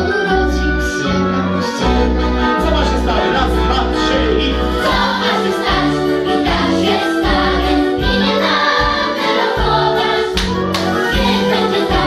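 Children's choir singing a song together over an instrumental accompaniment with a repeating bass line.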